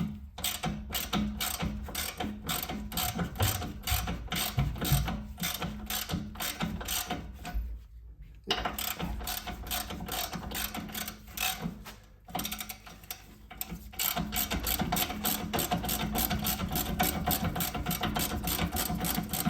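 Hand ratchet wrench clicking steadily, about three clicks a second, as a nut or bolt on the car's front suspension is turned, with two brief pauses.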